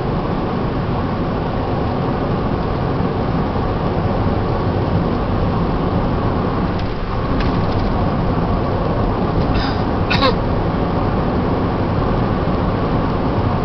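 Steady road and engine noise heard from inside a car driving at highway speed. A few faint brief high sounds come about seven seconds in, and a short chirp falling in pitch about ten seconds in.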